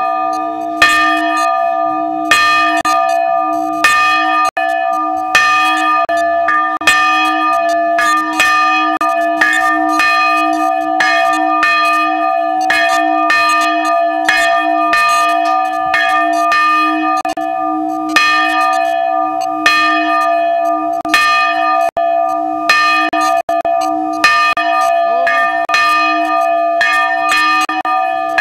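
A church bell, swung by its rope in an open steel frame, rings with a stroke about every second and a half, each stroke sounding on into the next over a steady low hum.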